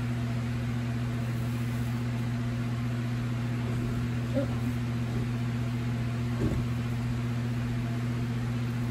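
A steady low machine hum runs evenly, with two faint brief sounds about four and six and a half seconds in.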